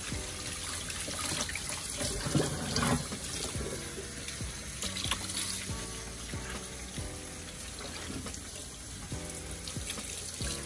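Cold water running from a kitchen tap onto a bunch of callaloo leaves in a stainless steel sink as they are rinsed and turned by hand, splashing into the basin. Background music plays underneath.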